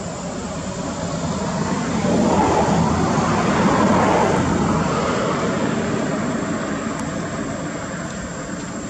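An aircraft passing overhead: a rumble that builds for about two seconds, peaks, then slowly fades.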